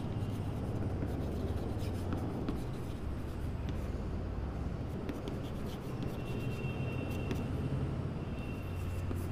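Chalk writing on a blackboard: faint scratching strokes and light taps as words are written out, over a steady low hum.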